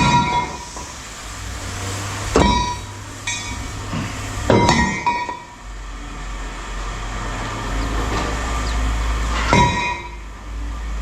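Pieces of scrap metal clanking as they are thrown down, about six ringing metal hits spread irregularly, over a steady low rumble.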